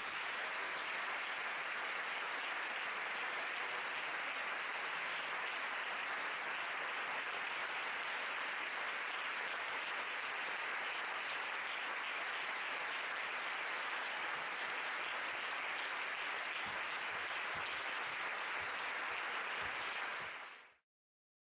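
Audience applauding steadily; the applause cuts off suddenly near the end.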